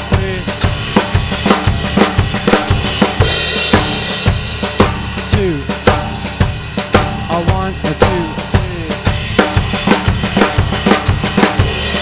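Drum kit playing a groove: bass drum, ride cymbal and snare drum, with fill bars of flammed Swiss Army triplets moving from the ride cymbal to the snare. A brighter cymbal wash comes up about three seconds in.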